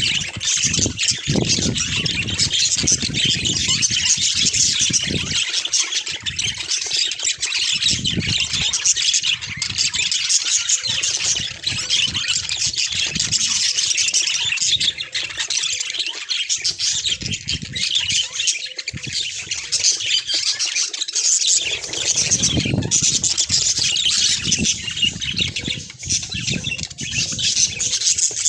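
A colony of budgerigars chattering and chirping all together, a dense steady din of overlapping calls, with low rumbling noise coming and going beneath it.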